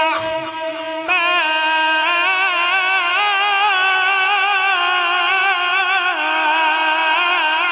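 A male Qur'an reciter chanting tilawat in a high, ornamented melodic style, drawing the recitation out into long, wavering held notes from about a second in.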